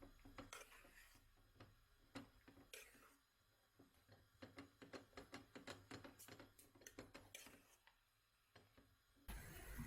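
Near silence broken by faint scattered clicks and light taps, as of small objects being handled. About nine seconds in, a louder steady rustling noise cuts in.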